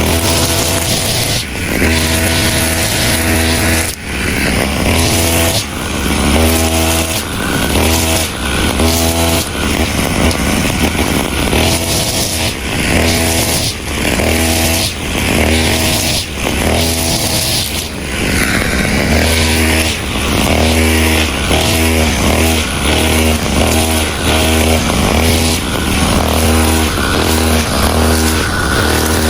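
Two-stroke brush cutter engine running hard, its speed rising and falling again and again as it cuts grass.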